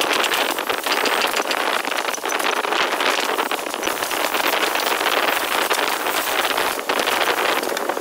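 Mortising machine's spinning bit cutting into hardwood: a loud, steady, harsh cutting noise full of rapid crackle as the chips are thrown out.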